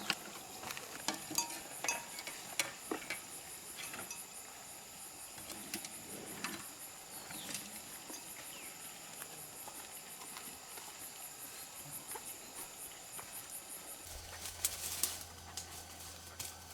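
Insects chirring in a steady high-pitched pulsing chorus, with scattered light clicks and clinks in the first few seconds. The chorus stops about two seconds before the end, when a low steady hum starts.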